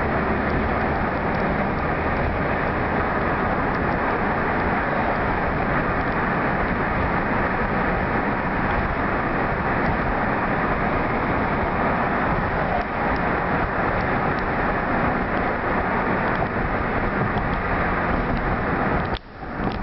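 Steady road and wind noise of a moving car, heard from inside the cabin. It drops away sharply for a moment near the end, then returns.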